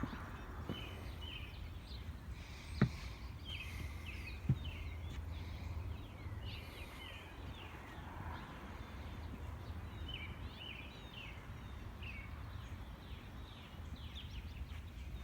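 Small birds chirping over and over above a steady low rumble, with two sharp clicks about three and four and a half seconds in.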